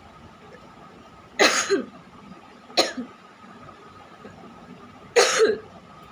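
A person coughing hard three times: a long harsh cough about a second and a half in, a short one about three seconds in, and another long one about five seconds in.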